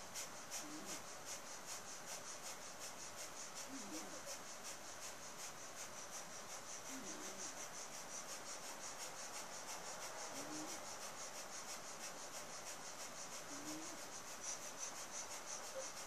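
Breath of Fire yoga breathing: rapid, forceful breaths in and out through the nose, pumped from the navel, an even hissing rhythm of about three breaths a second.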